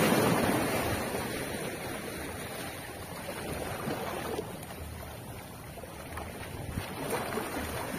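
Small sea waves washing against rocks, with wind on the microphone. The wash is loudest at the start and slowly eases off, with smaller swells later.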